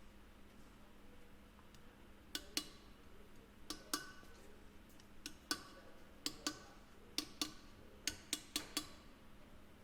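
Light hammer taps on a screwdriver driving the large snap ring of a Dexter Nev-R-Lube hub into its slot, about fifteen short metallic taps, often in pairs, starting about two seconds in. The tapping checks that the snap ring is seated all the way.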